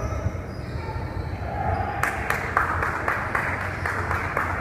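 Several people clapping their hands, starting suddenly about halfway through and going on as a quick run of irregular claps, over faint voices.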